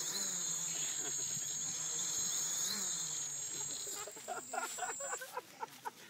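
Homemade Arduino AeroQuad quadcopter hovering low over grass: its motors and propellers give a steady high buzz that wavers in pitch. About four seconds in, short irregular ticks and knocks come in as the propellers strike the tall grass, and the buzz cuts off about a second later.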